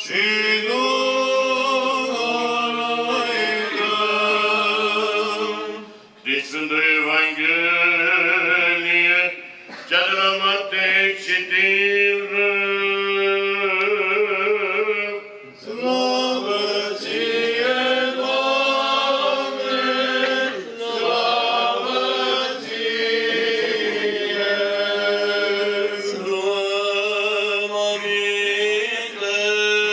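Orthodox church chant sung by voices, a melodic line with vibrato over a steady low held note, in long phrases with brief pauses between them.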